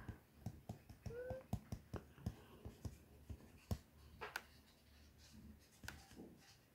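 Faint, irregular clicks and taps of a stylus tip on a tablet's glass screen during handwriting, several a second for the first four seconds or so, then sparser.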